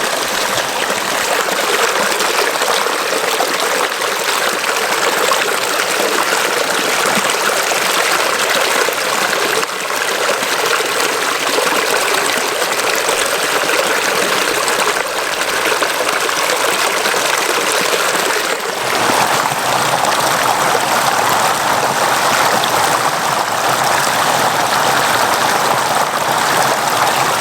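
A river flowing steadily, water rushing continuously over its bed. About two-thirds through, the rush becomes slightly fuller and lower.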